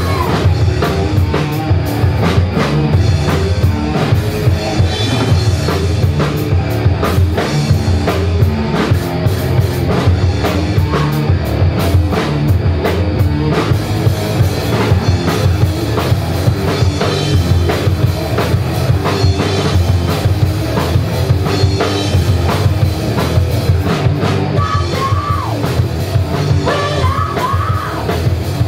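Live rock band playing loud, with electric guitar, bass guitar and a drum kit keeping a steady beat.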